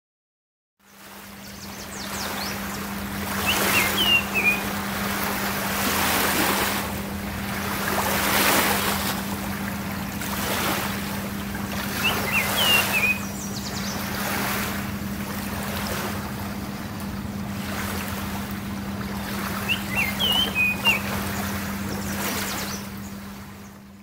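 Baltimore oriole singing three short phrases of clear whistled notes, about eight seconds apart. They sit over a loud rushing background that swells and fades every couple of seconds, with a steady low hum throughout.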